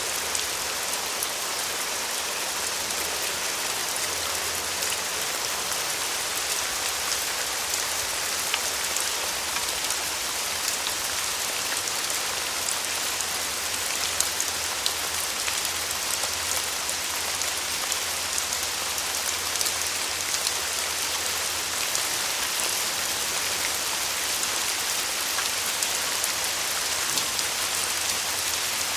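Steady rain falling, an even hiss sprinkled with many small sharp drop ticks.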